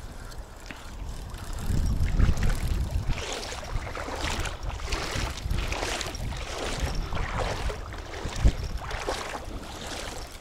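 Wind buffeting the microphone over shallow water, with a regular swishing about once or twice a second from the middle on and a single knock near the end.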